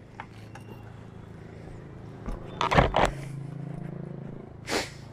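An engine running steadily at idle, with a short loud noise about two and a half seconds in and a brief hiss near the end.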